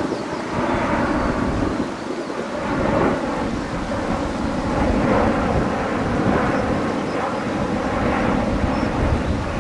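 Airbus A350-900 airliner's Rolls-Royce Trent XWB jet engines on arrival: a steady, dense jet noise with a crackling low rumble.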